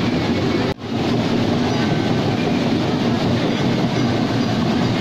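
Water pouring from a stone channel outlet and splashing into a pool: a steady rushing noise, broken by a brief dropout just under a second in.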